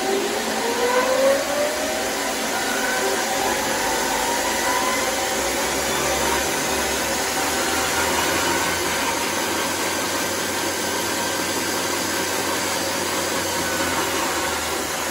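Custom-built electric chainsaw slab mill starting up and running free: the electric motor brings the skip chain up to speed around its long bar with a rising whine over the first two or three seconds, ramped by a variable frequency drive, then runs steadily at full chain speed.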